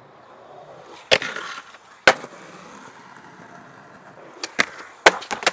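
Skateboard wheels rolling on concrete, with sharp clacks of the board hitting the ground: one about a second in, another a second later, then a quick cluster of four near the end.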